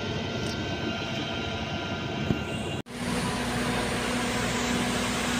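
Steady outdoor background hum, with an abrupt edit cut a little under three seconds in that switches to a slightly louder steady hum carrying a low constant tone.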